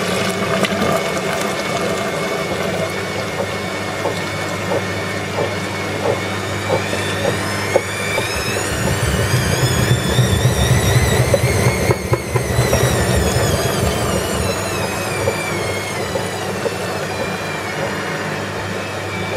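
Bosch Advantixx 7 washing machine running, its motor whine rising in pitch to a peak about halfway through and then falling back, with a heavier rumble while the whine is at its highest and scattered small knocks throughout. The noise is the one that the uploader puts down to a worn bearing ring on the drum shaft.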